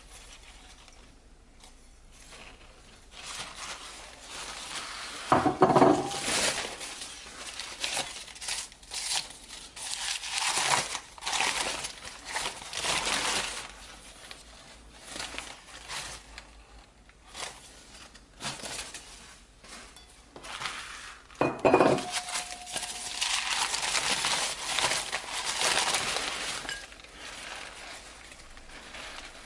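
Enamelware bowls being unwrapped from crinkling paper, with two clinks, about six seconds in and again about twenty-two seconds in, where the enamel-coated steel bowls knock and ring briefly.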